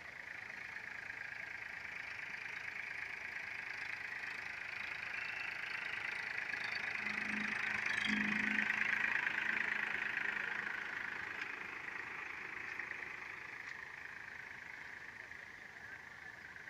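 Powertrac tractor pulling a disc harrow, its engine running steadily as it drives past. The sound swells to a peak about halfway through as the tractor comes closest, then fades as it pulls away.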